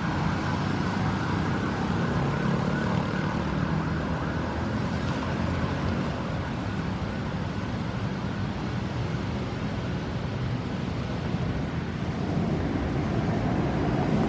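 An emergency vehicle's siren with a fast warble, fading away within the first couple of seconds, leaving steady road traffic noise and engine hum from passing vehicles.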